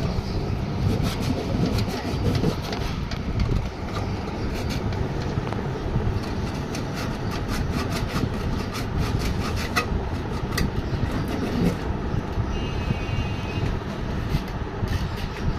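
Sandpaper rubbing over a carbon-blackened spot inside a sparking microwave oven, a scratchy scrubbing with many irregular clicks over a steady low rumble.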